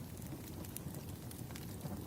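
Wood fire crackling: a steady low rumble with small, scattered pops and crackles of burning logs.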